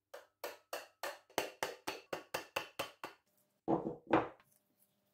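Mallet knocking a braided silver wire cuff round on a wooden bracelet mandrel: about a dozen quick knocks at roughly four a second, then two heavier, longer knocks near the end.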